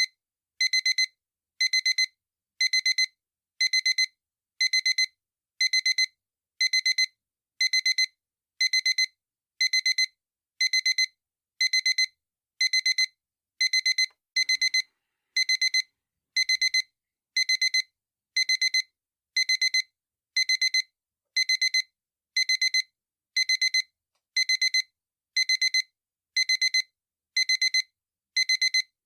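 Digital alarm clock beeping: a high-pitched electronic tone in quick bursts of several rapid beeps, repeating evenly about once a second.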